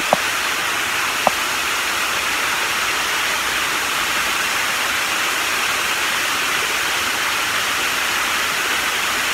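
Steady rushing of a waterfall, an even, unbroken wash of falling water, with a couple of small clicks in the first second and a half.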